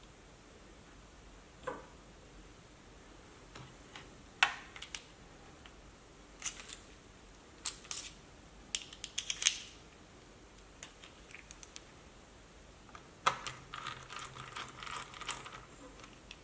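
Scattered small clicks and taps of laptop parts and small tools being handled during disassembly of a laptop's cooling assembly. The sharpest clicks come about four and a half seconds in and again about thirteen seconds in, followed by a busy run of small rattling clicks.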